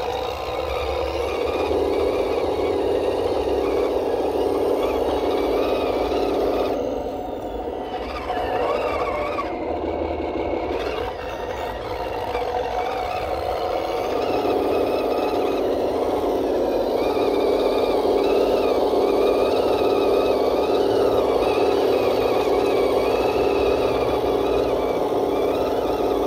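Cross RC KrAZ 260 six-wheel RC truck running through muddy water, its motor and gears whining, the pitch rising and falling with the throttle. It eases off twice and picks up again.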